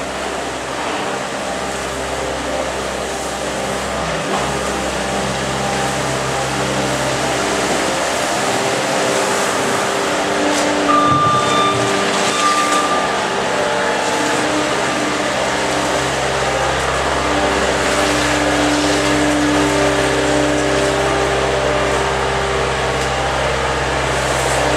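Farm vehicle engine running steadily and slowly growing louder, with two short high beeps about eleven seconds in.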